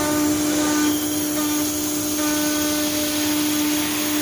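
CNC wood router running: a steady machine hum over a constant rushing hiss, with short higher tones switching on and off every half second or so.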